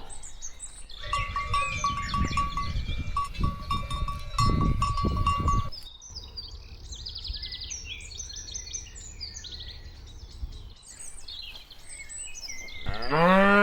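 A herd of cattle moving, with low shuffling and thudding for the first few seconds and a rapid run of short high pips over it. Birds chirp faintly in the quieter middle, and near the end a cow starts a long moo.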